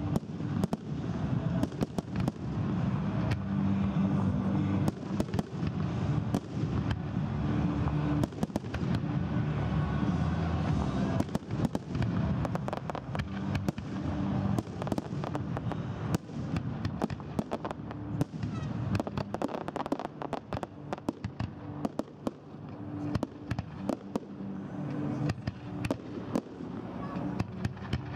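Aerial fireworks display: shells bursting in rapid, overlapping bangs and crackles, many a second.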